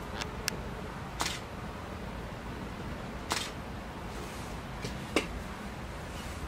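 Camera shutters clicking, about six single clicks at irregular intervals over a steady low background rumble, the sharpest about five seconds in.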